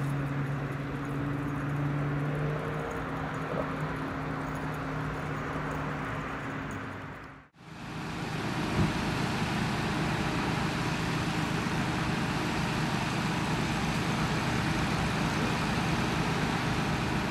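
Road vehicle engines and traffic noise: a steady engine hum at first, cutting out briefly about seven seconds in and giving way to a denser, even road noise.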